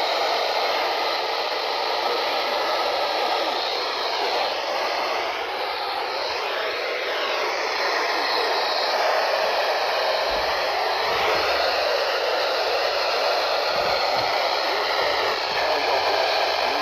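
Steady hiss of radio static from a weakly received broadcast, with faint wavering traces in it.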